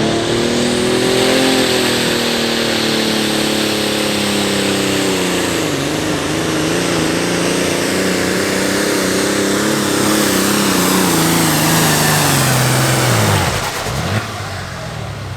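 Pro Farm class pulling tractor's diesel engine running flat out under load, its pitch slowly sagging. About two seconds before the end, the pitch falls away steeply and the sound drops as the throttle comes off.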